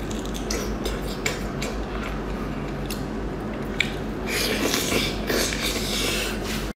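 Close-miked eating sounds: biting into soft, saucy food, with wet squishing, sucking and small mouth clicks. The wet sounds grow louder and busier about four seconds in.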